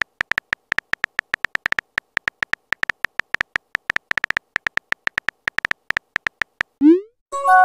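Chat-app keyboard typing sound effect: a rapid run of short, same-pitched electronic ticks, one per letter typed. Near the end, a quick rising pop and then a ringing multi-tone chime, the app's message-sent sound.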